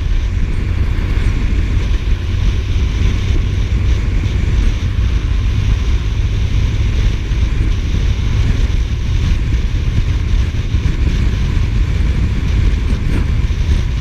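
Steady low rumble of a Suzuki GSF1250S Bandit's inline-four engine under way, heavily overlaid by wind rushing over the camera microphone at road speed.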